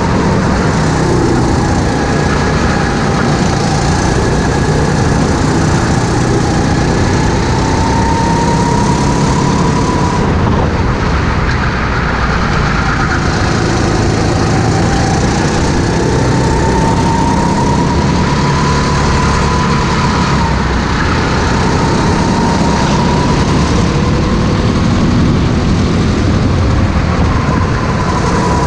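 Racing go-kart engine running hard on track, its pitch rising and falling as the kart speeds up on straights and slows for corners, with wind rushing over the onboard microphone.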